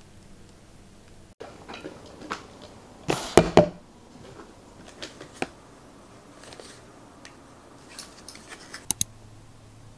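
Small household items being handled and set down on a hard surface: scattered light clicks and knocks, with a cluster of sharper clacks about three seconds in and a couple more clicks near the end.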